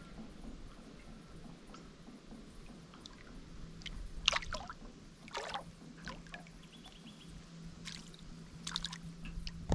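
Water lapping and trickling quietly around a small aluminium boat, with a few short knocks and splashes and a faint steady hum from about three and a half seconds in.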